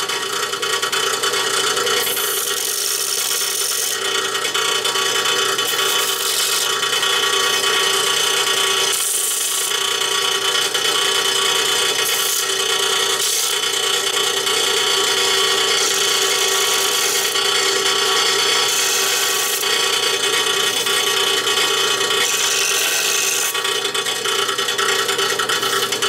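Bench belt-and-disc sander running steadily, with repeated short grinding rasps as the cut end of a steel bolt is touched to the sanding disc. It is taking the burr off the bolt's cut edges so the bolt will start in the threads without stripping.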